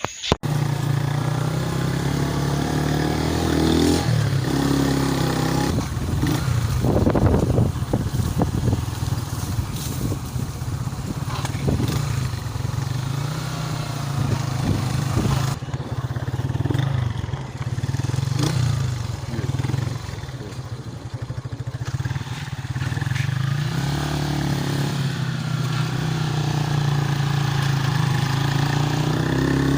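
Motor vehicle engine running, its pitch shifting up and down several times as it travels, with road noise and scattered knocks and rattles.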